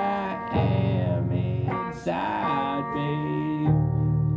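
Live solo music: guitar chords ringing under a singer's held, wordless vocal notes between lines of the song.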